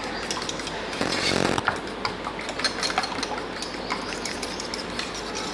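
A metal spoon beating eggs fast in a small steel bowl, a rapid, steady clatter of metal tapping on metal as the eggs are whisked for an omelette.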